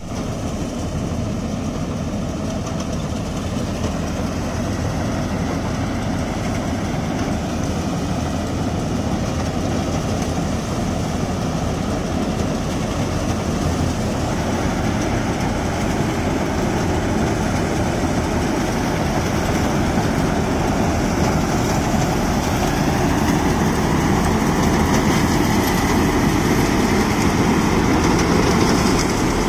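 Combine harvester running steadily while cutting rice, its engine and threshing machinery making one continuous mechanical sound that grows gradually louder.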